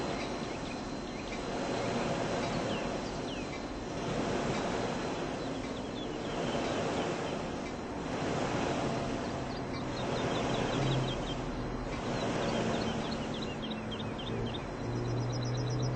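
Departing Metra commuter train rolling past: a steady rushing rumble of wheels on rail that swells and fades about every two seconds as the cars go by, with many short high squeaks.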